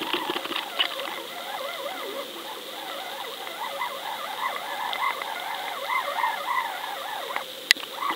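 Underwater sound picked up by a camera on a fishing line: a busy stream of short chirps and crackles over a steady hum, with one sharp click near the end.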